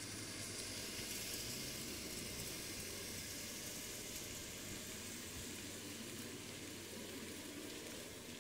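A steady high-pitched hiss with no distinct events, fading slightly near the end.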